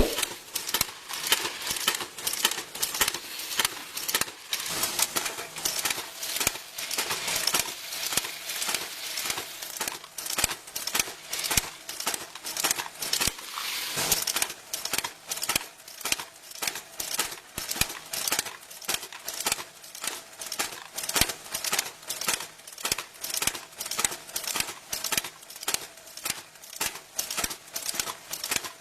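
Ammunition production machinery clicking and clattering, with small metal parts rattling through it at several uneven clicks a second.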